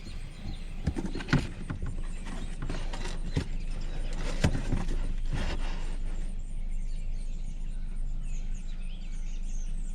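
Irregular knocks and clicks of car interior trim being handled, about six in the first five seconds, over a steady background hiss.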